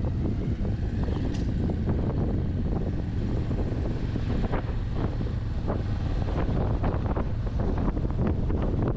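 Wind buffeting the microphone while riding a Bajaj Avenger 160 Street motorcycle, its single-cylinder engine running steadily underneath the rush of wind.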